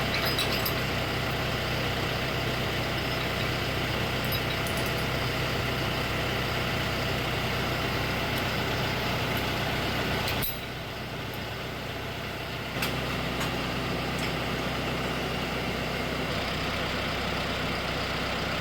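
John Deere 6120E tractor's four-cylinder diesel engine running steadily at low speed. A little past halfway it suddenly turns quieter for about two seconds, then comes back.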